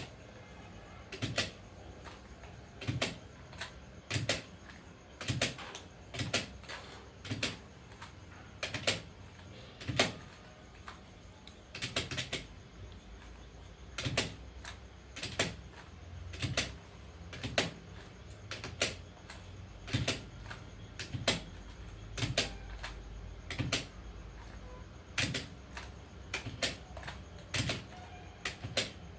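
Sharp plastic clicks at irregular intervals, often in pairs, about one a second.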